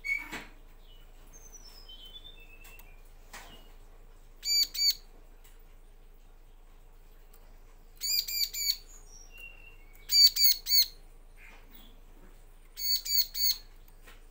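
Bar-winged prinia (ciblek) calling in four loud bursts of two to four sharp, ringing notes, with a few faint falling chirps before the first. A couple of sharp knocks, at the start and about three seconds in.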